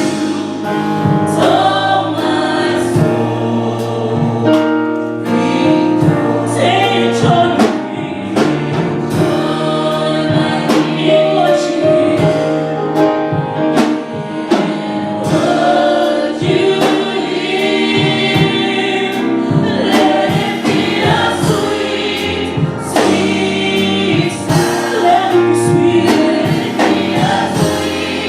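Gospel choir singing with a live band: many voices together over a steady beat of drums and bass.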